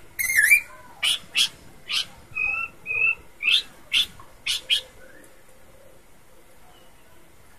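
Pelanduk semak (Horsfield's babbler) calling: a quick run of about ten loud, sharp whistled notes with two short level whistles in the middle, stopping about five seconds in.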